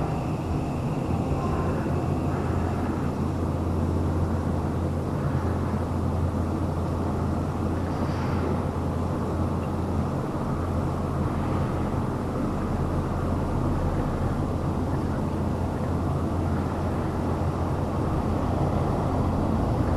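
Two-car electric train creeping into the platform and standing there, with a steady low hum from its onboard equipment.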